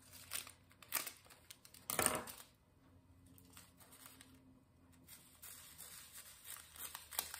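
Faint handling noise from diamond-painting kitting: small plastic bags and diamond-painting drills being worked by hand, with a few sharp ticks and one louder short clatter about two seconds in.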